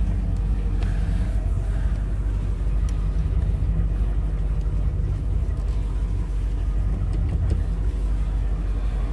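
2004 Tigé 22V wakeboard boat's inboard engine idling steadily after a cold start, a low, even rumble with no change in speed.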